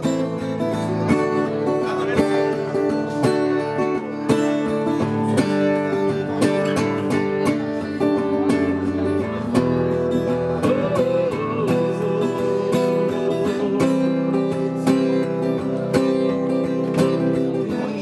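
Takamine acoustic guitar strummed in a steady rhythm, its chords ringing on, in an instrumental break between sung verses.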